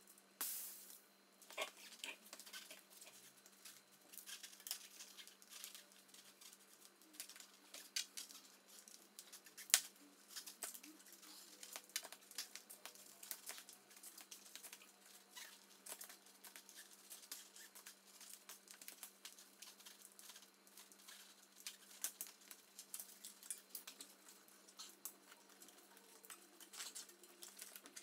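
Irregular soft clicks, rubbing and rustling as a bicycle rear wheel is handled and its tyre is worked around the rim by hand.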